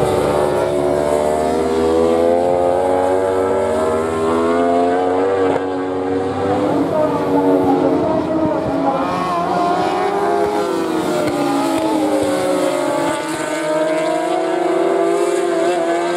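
Inline-four superbike engines running at racing speed around the circuit, several at once, their pitch rising and falling as the bikes accelerate and brake through the gears.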